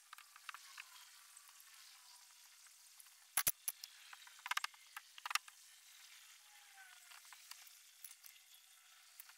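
Small clicks and a few sharp knocks of hand work on a boat's rear panel, loudest as a cluster of knocks about three and a half to five and a half seconds in, over a steady crackling hiss.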